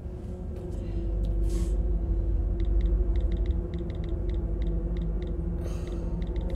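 Smartphone touchscreen keyboard clicks: a quick run of short taps as text is typed, starting about two and a half seconds in, over a low steady hum.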